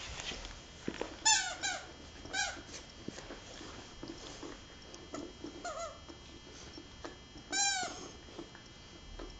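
A squeaky dog toy squeaking in short irregular squeezes as puppies chew and play with it, about six squeaks, the loudest about three-quarters of the way in.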